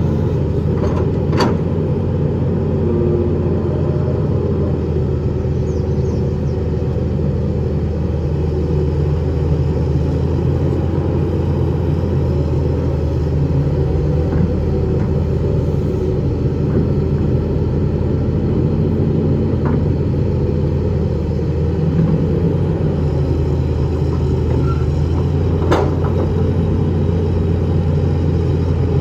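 Hitachi EX200 excavator's diesel engine running steadily under work, with two sharp knocks, one just after the start and one near the end.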